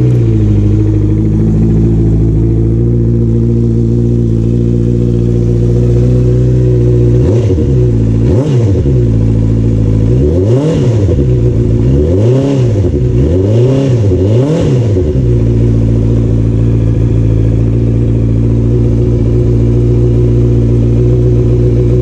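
Honda CBR650R's inline-four engine, just started, settling from a fast idle to a steady idle. In the middle the throttle is blipped about six times in short revs that rise and fall, and it then idles steadily again. This is a test start after the air filter change.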